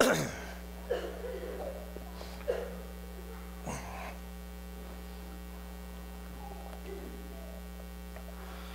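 Steady electrical mains hum, a low buzz with an overtone, with a few faint brief sounds of people shifting in the first four seconds.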